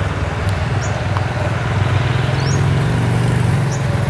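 Diesel engines of several Kubota DC-70 rice combine harvesters running together, a steady low drone. A few short high chirps sound over it.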